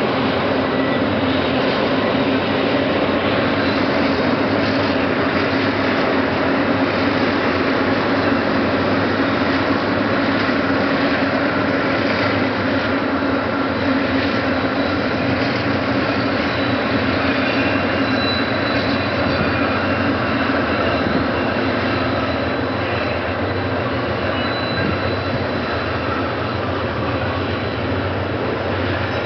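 A loaded freight train rolling past steadily. The diesel-electric locomotives' engines hum in the first part, then a long string of hopper wagons laden with clinker and limestone rumble over the rails, with a faint high wheel squeal at times.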